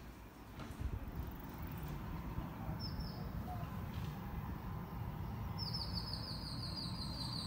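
A bird singing outdoors: one short high call about three seconds in, then a quick trill of repeated high notes starting about two seconds before the end. Under it runs a low, uneven rumble of outdoor noise.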